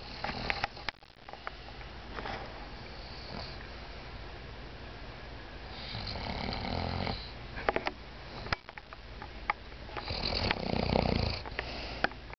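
A dog snoring loudly in its sleep, with two long rasping snores in the second half and a softer one early on. A few sharp clicks are also heard.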